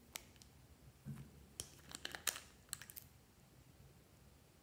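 Light clicks and taps as a glass dropper bottle's gold cap is unscrewed and lifted off, the cap and glass knocking together in a quick scatter of small sharp sounds for about three seconds.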